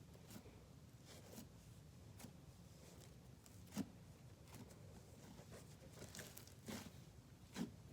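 Slime being squished and stretched by hand, giving faint, irregular crackles and small pops, with a few louder pops about four seconds in and near the end.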